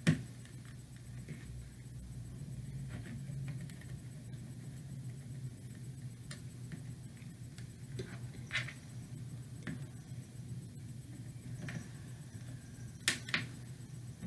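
Faint ticks and light scratches from a soldering iron tip and a stripped wire being handled on a cutting mat, over a steady low hum, with two sharper clicks near the end.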